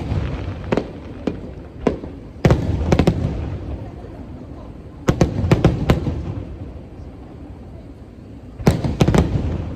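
Aerial firework shells bursting in quick clusters of sharp bangs every few seconds, each cluster followed by a low rolling rumble.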